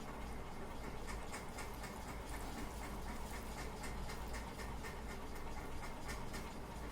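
Sliced bitter gourd frying in hot oil, a steady sizzle with dense, fine crackling.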